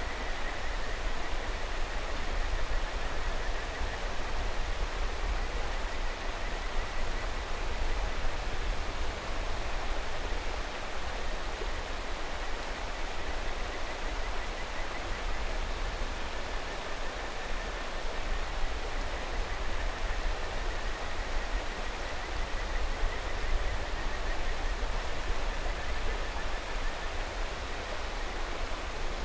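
Steady rush of a mountain river, with kajika frogs (Buergeria buergeri) calling faintly over it in thin trilled notes, briefly at the start and again through the second half.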